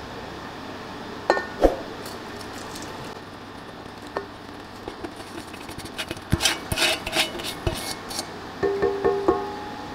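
Stainless steel bowls clinking and ringing as brown sugar is poured from one bowl into a stand mixer's stainless steel bowl. Two sharp knocks come early, then a spell of scraping and clicking as the sugar is scraped out with a silicone spatula, and a few ringing knocks near the end.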